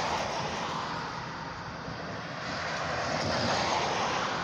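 Passing road traffic: a minivan driving by, its tyre and engine noise fading away, then another swell of traffic noise about three seconds in.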